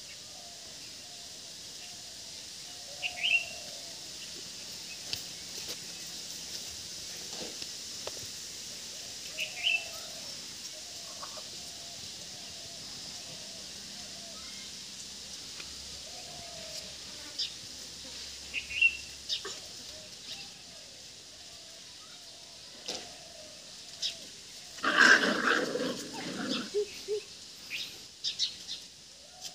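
Rural outdoor ambience with birds chirping now and then over a steady high hiss. Near the end comes a louder burst lasting about a second and a half, followed by a few short sounds.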